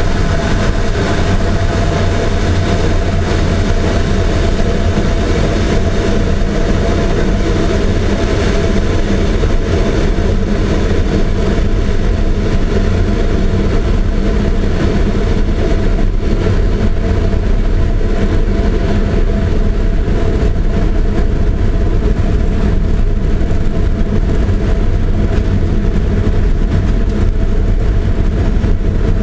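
Land-speed streamliner running down the course, heard from inside its cockpit: a steady, loud drone of engine and wind noise.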